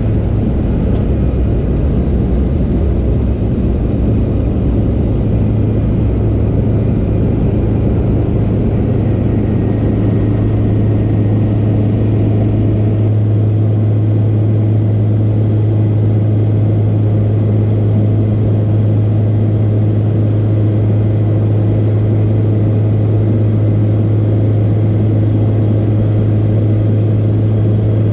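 Light aircraft's piston engine and propeller heard from inside the cabin: a loud, steady drone. A strong low hum firms up about four seconds in and then holds constant.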